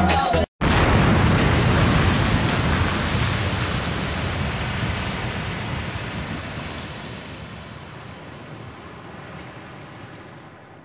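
Dance music cuts off about half a second in. A steady rushing noise like surf or wind follows and fades slowly away over about ten seconds.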